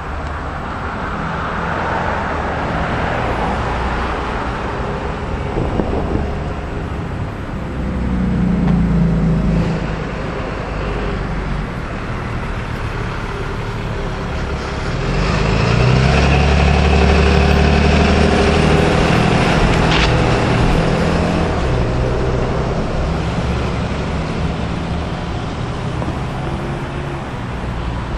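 Road traffic: a low rumble of passing car engines and tyres that swells twice, briefly about eight seconds in and for longer from about fifteen seconds.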